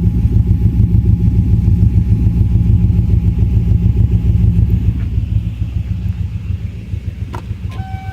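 Car engine idling roughly with an uneven, lumpy pulsing note and the engine shaking, which the owner takes for a possible misfire after a hot restart. It becomes quieter from about five seconds in.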